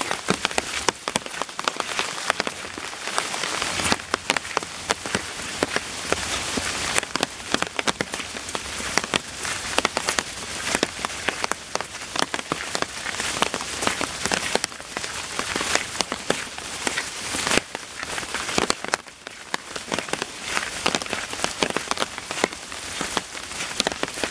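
Heavy rain falling steadily: a dense hiss crowded with many sharp separate taps of drops striking close by.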